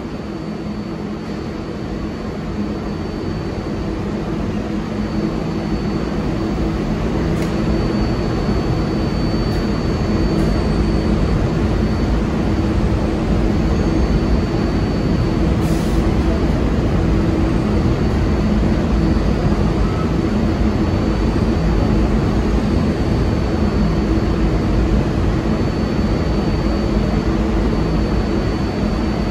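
New York City subway train running: a steady, loud rumble with a low hum. It builds over the first ten seconds or so, then holds.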